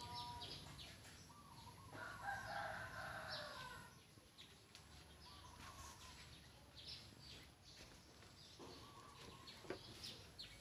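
A rooster crows once, about two seconds in, a call lasting about two seconds, while small birds chirp briefly throughout.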